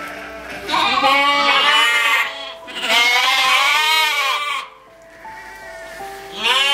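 Sheep bleating: two long, quavering bleats, then a shorter one near the end, over soft background piano music.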